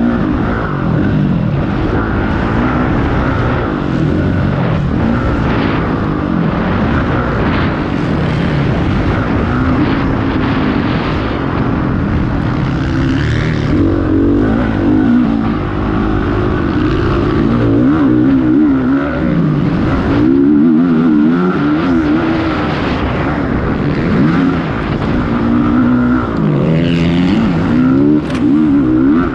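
Motocross bikes racing, their engines revving up and falling back again and again.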